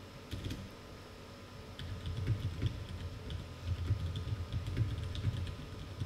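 Typing on a Das Keyboard 4 Ultimate mechanical keyboard: a quick patter of key clicks that gets busier about two seconds in. Under it runs the steady hum of dehumidifiers, heard with no noise suppression.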